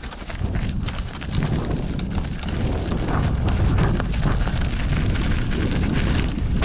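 Wind buffeting the microphone over a steady low rumble, with frequent small clicks and rattles, as from riding fast downhill over rough ground.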